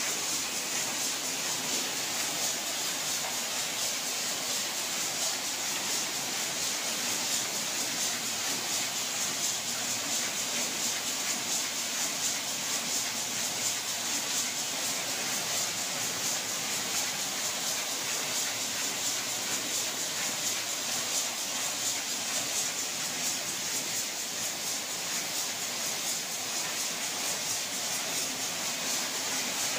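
Rotary egg-breaking machine running: a steady hissing machine noise with a fast, fine rattle, unchanging throughout.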